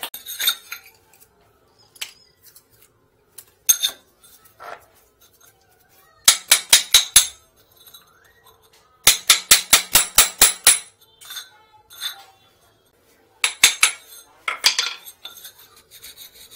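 Metal tool chipping ceramic floor tile and mortar around a toilet drain opening: three runs of quick sharp strikes, about seven a second, with scattered single knocks and scraping between them.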